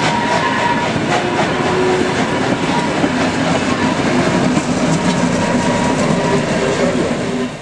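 Passenger coaches rolling past close by, with a steady clatter of wheels over rail joints. Thin squealing tones from the wheels come and go.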